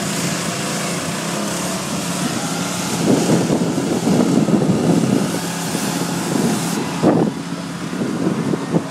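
Street traffic going past, over a steady hiss of a hose spraying water that stops about seven seconds in, with a couple of short knocks near the end.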